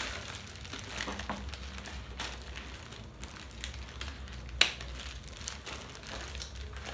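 Disposable plastic gloves crinkling and rustling as gloved hands squeeze and handle a cloth, with one sharp click about four and a half seconds in.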